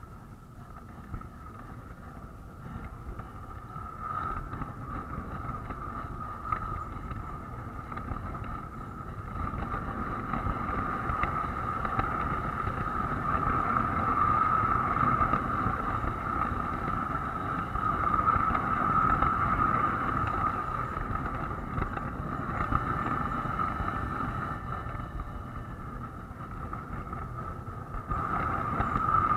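Lionel model train running on its track, heard from a camera riding aboard: a steady rolling rumble of wheels on the rails with a constant whine, louder from about ten seconds in.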